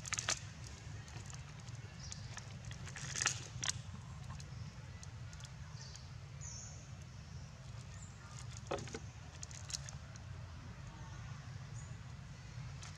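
Scattered crinkling and crackling of plastic water bottles and a plastic bag as monkeys handle them and drink. The sharper crackles come just after the start, around three seconds in and again around nine seconds in, over a steady low rumble.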